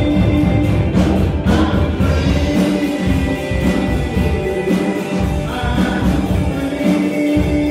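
Live worship song: a woman singing lead over guitar and a band with a steady beat.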